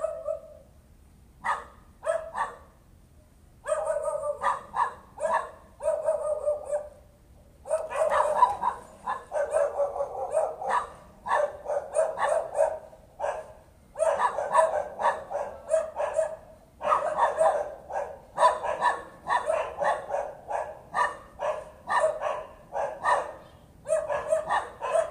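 Dog barking over and over: a few spaced barks at first, then nearly unbroken runs of rapid barks from about a third of the way in. This is persistent nuisance barking.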